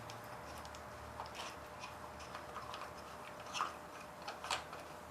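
Scattered light clicks and taps of hands and tools working on a lawnmower carburetor, with two sharper clicks in the second half, over a faint steady low hum.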